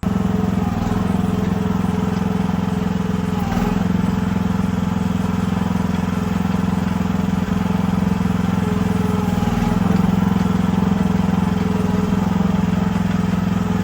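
Small gasoline engine of a Chinese mini excavator running steadily while the machine is driven along.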